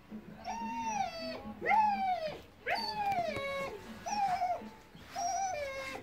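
Dog whimpering: a run of about six short, high cries, roughly one a second, each rising quickly and then sliding down in pitch.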